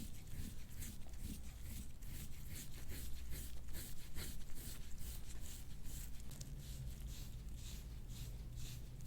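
Quick, even rubbing strokes over skin, about three or four a second, from soft-tissue work on the back. The strokes run over a steady low room hum.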